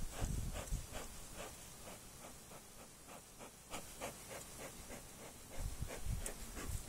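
Faint, quick, regular puffs of air, about four a second, from a beekeeper's smoker bellows being pumped to send smoke into a hive entrance.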